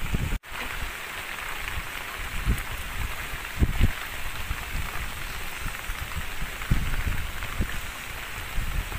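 Heavy rain pouring steadily, with irregular low thumps. The sound cuts out for a moment about half a second in.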